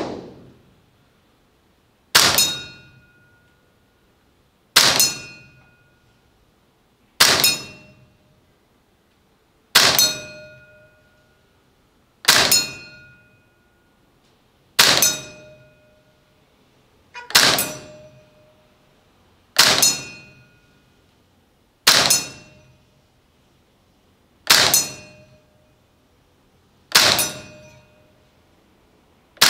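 APFG MPX gas blowback airsoft rifle firing slow single shots, about one every two and a half seconds, eleven in all. Each sharp crack of the shot and bolt cycling is followed by a short metallic ring, the ding of the BB striking the steel target.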